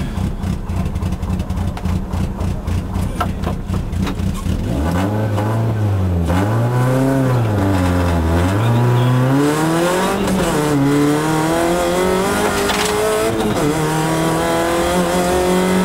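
Fiat Cinquecento rally car's engine, heard from inside the cabin, held at steady, pulsing revs at the stage start. About five seconds in the car pulls away: the revs rise and drop back with each gear change, then climb steadily as it gathers speed.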